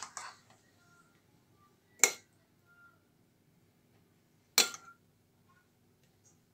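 Metal spoon clinking against a dish as tomato sauce is scooped and dolloped onto pizza dough: three sharp clinks, about two seconds apart.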